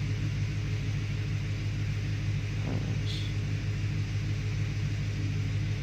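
Ford 4.6-litre two-valve V8 idling steadily, a low even rumble. The engine has a logged intermittent cylinder 6 misfire, but no misfire is felt in the idle at this point. A faint click and a short high chirp sound about halfway through.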